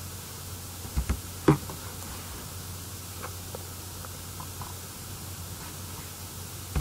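A few soft mouse clicks and desk knocks over a steady microphone hiss and low mains hum, with a sharper click right at the end.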